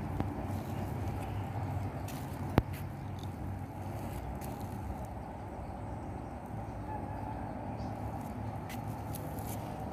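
Steady low outdoor rumble, with a single sharp click about two and a half seconds in.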